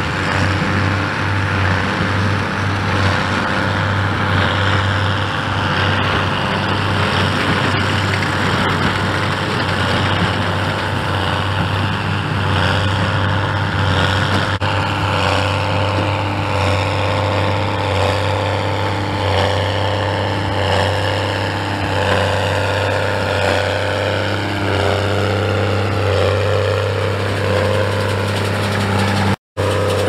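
Straight-piped New Holland tractor diesels, a T7040 and an 8970, running steadily under load while pulling square balers. The engine note pulses regularly through the second half, and the sound breaks off for a split second near the end.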